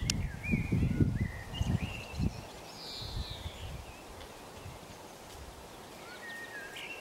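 Outdoor birdsong, a few short whistled notes and a falling chirp, over irregular low rustling thumps in the first two seconds that fade out.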